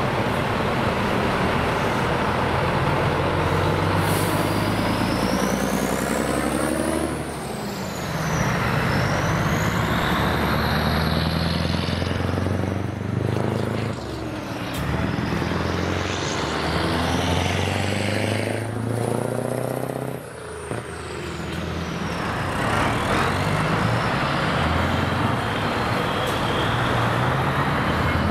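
Classic heavy-truck diesel engines, Scania 143M V8s and a Volvo F16 on open exhaust pipes, pulling away under load. The revs climb and fall back at each gear change, roughly every six seconds, with a high whistle rising and falling along with the revs.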